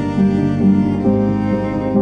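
Background music played by bowed strings, a slow melody with a chord change about a second in.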